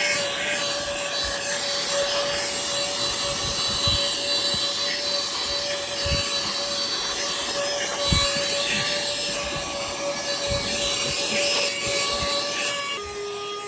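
Mini handheld cordless car vacuum running, a steady motor whine with airflow rush; the whine steps up in pitch at the start and drops back down near the end. Scattered bumps and rubbing as the nozzle works over surfaces.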